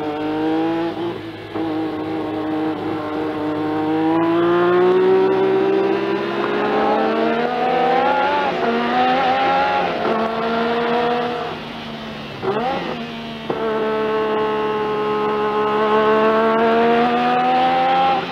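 Turbocharged Renault V6 of a 1986 Tyrrell Formula 1 car heard onboard under hard acceleration, its pitch climbing slowly for about ten seconds. About twelve seconds in the engine note drops and gives one quick rise and fall, then it climbs steadily again.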